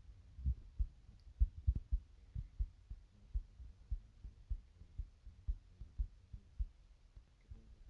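Soft, dull low thumps at an uneven pace, two or three a second, over faint background noise.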